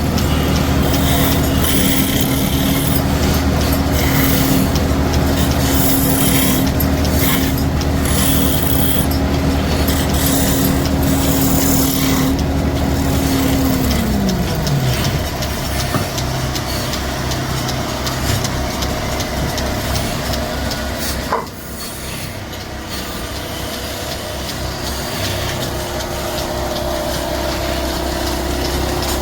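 Woodworking machine's electric motor running steadily with wood scraping against it, then winding down about halfway through; a sharp click a little later.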